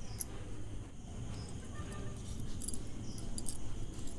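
Wheat-flour roti dough being pressed flat and rolled out with a wooden rolling pin on a marble board: a soft rolling rumble. Light clinks of glass bangles come in small clusters in the second half.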